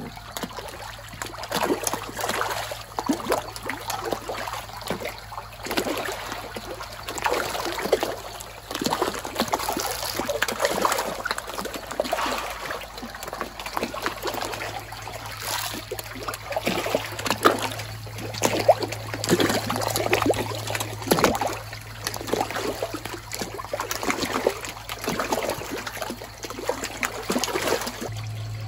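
Fish splashing and slurping at the water surface as they take floating feed pellets in an aquaponics fish tank, irregular splashes coming thick and fast. A steady low hum runs underneath.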